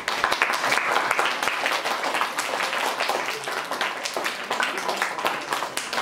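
Audience applauding: many hands clapping in a dense, irregular stream.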